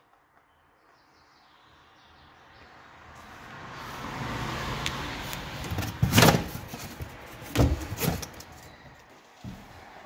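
Handling noise from a sheet of corrugated cardboard moved close to the microphone: a scraping rustle that swells over the first few seconds, then loud sharp crackles and knocks about six seconds in and again about two seconds later.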